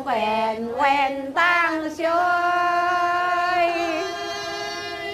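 Young Dong singers singing a folk song a cappella in high voices: short gliding phrases, then one long held note from about two seconds in.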